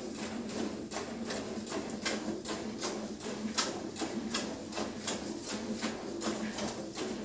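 Cow being milked by hand: jets of milk squirt from the teats into a plastic bucket of frothy milk in a steady rhythm, about three squirts a second.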